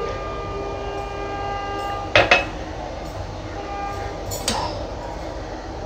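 Kitchen dishes and utensils clinking twice, about two seconds in and again near four and a half seconds, over a steady droning tone with a whine in it.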